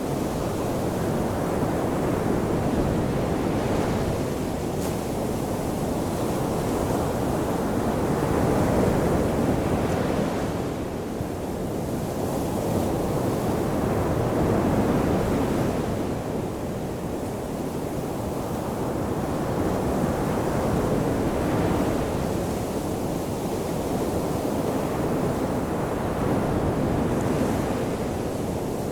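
Ocean waves washing onto a shore: a continuous rush of surf that swells and eases about every six seconds.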